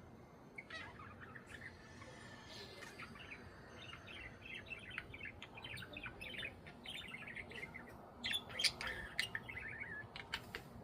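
Budgies chattering, a run of short quick chirps that grows busier from about four seconds in, with a few louder sharp calls near the end.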